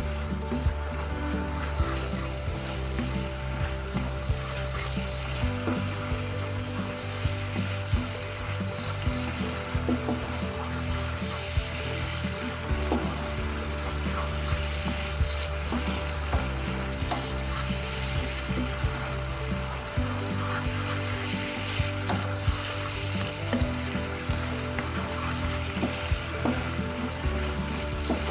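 Tomato sauce sizzling and bubbling in a nonstick frying pan while a wooden spatula stirs it, with small pops and scrapes throughout.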